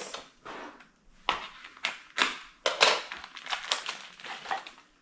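Plastic packaging crinkling and scrunching in a quick series of short crackles as small curtain-rod hardware parts are handled.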